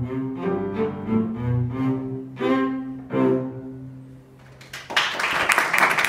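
Cello with piano accompaniment playing the closing bars of a minuet and gavotte, with piano chords struck under the cello line and ending on a long held low cello note. Applause breaks out about five seconds in.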